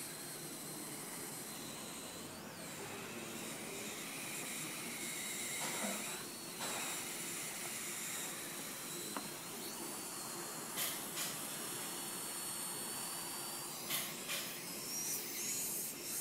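Steady hiss from a smoke-leak test on a Chevrolet Cobalt's engine, smoke being pushed through the system to find the leak behind a gas smell. A few light knocks from handling come in the second half.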